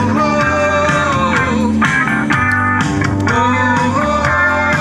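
Background rock music with guitar and a steady bass line.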